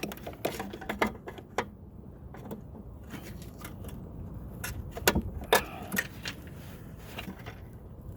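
Irregular clicks and knocks of a tool prying and working at stubborn plastic clips on a mower's cable, with a louder run of knocks about five seconds in.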